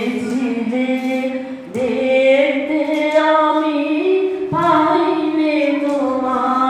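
Music: a woman singing long held notes that slide from pitch to pitch, with no clear words.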